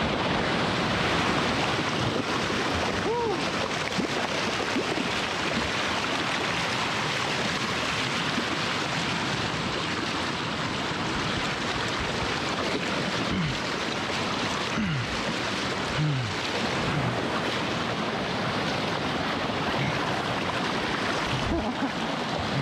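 River rapids rushing and splashing over boulders and a rocky bed, a steady even noise, with a few short falling tones a little past halfway.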